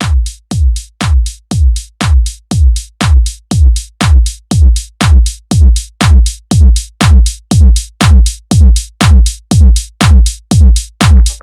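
Electronic dance music with a heavy drum-machine kick on every beat, a little over two beats a second, each kick leaving a deep booming tail.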